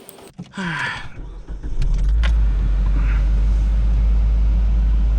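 2006 Hyundai Elantra's 2.0-litre four-cylinder engine starting about a second in, then running steadily at idle with a loud low rumble. It starts and runs on freshly fitted spark plugs and plug wires, the sign that they were installed correctly.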